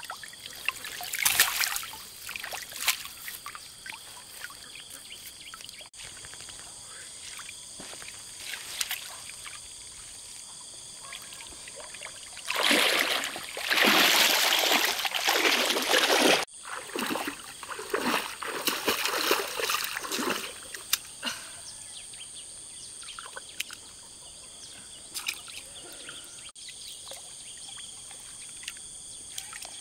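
Lake water splashing, sloshing and trickling as a triangular fishing net is worked through it, with a long burst of heavy splashing of about four seconds around the middle and lighter splashes and drips either side.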